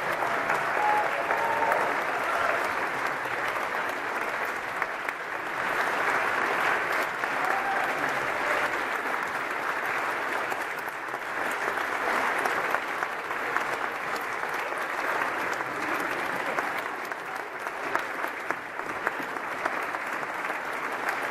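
Audience applauding steadily: many hands clapping together, with no break.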